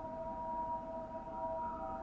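Ambient background music of long, steady held tones, with a higher note sliding in near the end.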